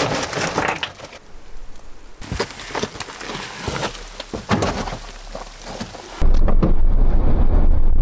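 Short knocks, crackles and rustling from handling and steps. About six seconds in, a sudden loud, low rumble of wind on the microphone in a snowstorm takes over.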